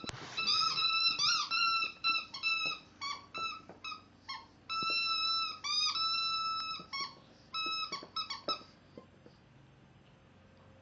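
A dog's squeaky toy squeaking again and again as a Shih Tzu puppy bites and squeezes it. It makes a rapid string of short squeaks, all at the same pitch, with a couple of longer ones midway, and stops a little before the end.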